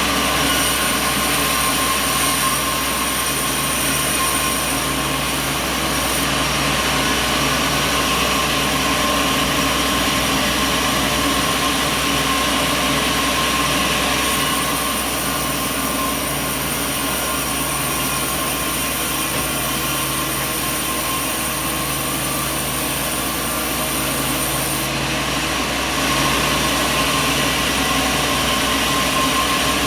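Sawmill machinery running steadily: a constant mechanical drone with steady hum tones and a hissing top. It eases slightly for a stretch in the middle and comes back up near the end.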